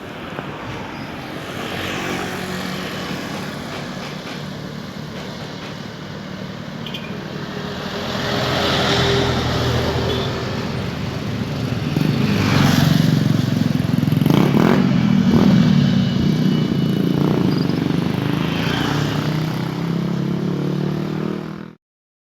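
A heavy road vehicle's engine running close by with road noise, getting louder through the middle, then cutting off suddenly near the end.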